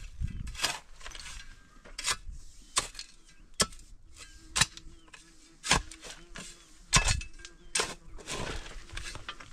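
Steel shovel blade striking and scraping into stony, rocky soil in a series of sharp knocks, about one a second.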